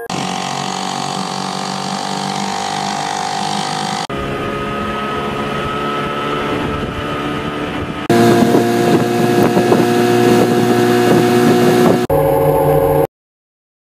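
Outboard boat motors running at speed, in a run of short clips each about four seconds long, each a steady engine tone over rushing wind and water; the third clip is the loudest.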